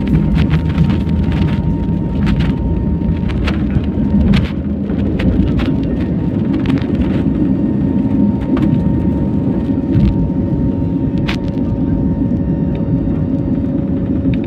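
Jet airliner's engines at takeoff thrust, heard from inside the cabin over the wing: a loud, steady rumble as the plane accelerates down the runway and lifts off. Short knocks and rattles come through, mostly in the first half.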